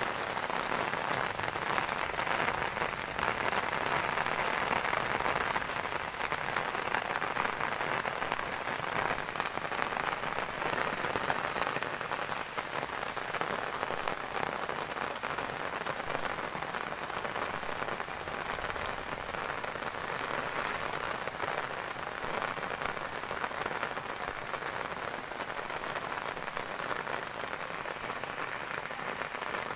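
Heavy rain falling steadily, a dense patter of drops on corrugated metal roof sheets, a little heavier in the first half.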